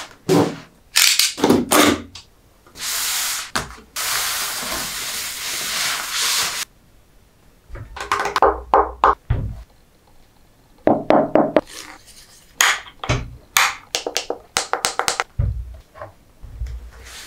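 Close-up unboxing sounds of a Marshall Acton III speaker: knocks and taps on the cardboard box, then two long, steady scraping rustles as the packaging slides apart. After that come runs of crinkling and sharp clicks as the speaker is unwrapped and handled, and a few low thuds as it is set down on the desk.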